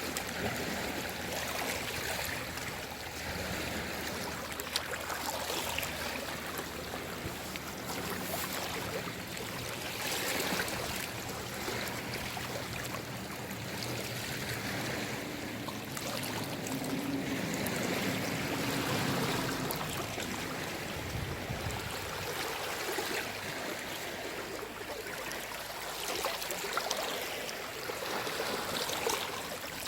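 Small sea waves washing in and draining back, an even rush that swells and eases every few seconds. A faint low hum rises and fades past the middle.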